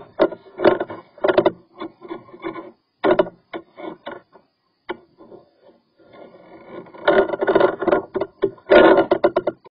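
Irregular scraping and rubbing strokes of a drain cleaning cable with a wire-bristle head being worked inside a sink drain pipe to clear a clog. The strokes thin out for a couple of seconds in the middle and return louder near the end.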